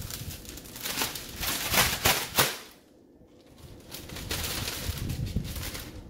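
Clear plastic zip-top bag crinkling and rustling as gloved hands handle it, with two sharper crackles about two seconds in and a short pause about halfway through.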